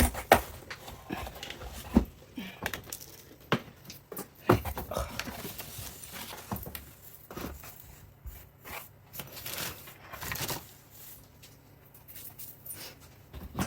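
A parcel being unpacked by hand: irregular sharp knocks and clicks, with tearing and rustling of packaging. The knocks are loudest in the first five seconds.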